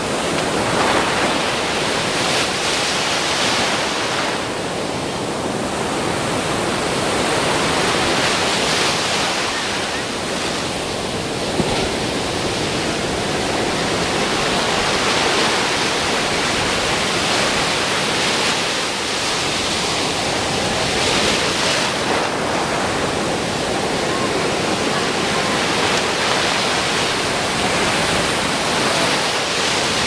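Heavy ocean surf breaking on the beach: a steady rush of foaming water that swells every few seconds as each wave breaks.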